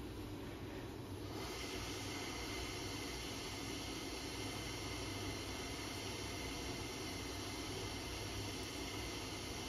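Hot air rework station blowing a steady hiss that comes on about a second in, heating an iPhone 7 logic board to desolder the shorted amplifier chip.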